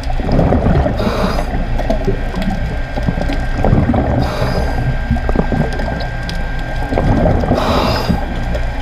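Underwater sound picked up by a diver's camera: a steady low rumble full of small clicks and crackles, broken three times, about three seconds apart, by a short rush of bubbling hiss typical of a diver's exhaled bubbles from a scuba regulator.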